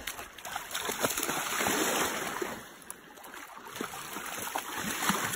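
Golden retriever splashing as it runs and wades through shallow water. The splashing is loudest about one to two seconds in, eases off around three seconds, then picks up again.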